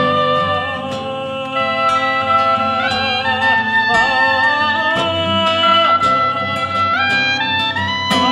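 A man singing long, held notes that step up and down, some with a waver, over classical guitar plucking.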